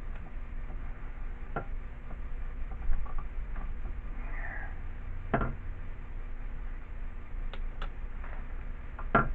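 Scattered metallic clicks and knocks, about six in all, from tools and parts being handled while an old air compressor is taken apart, over a steady low hum.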